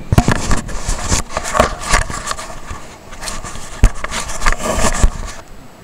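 Irregular knocks, scrapes and thumps, with one sharp knock a little before four seconds in; they stop shortly before the end.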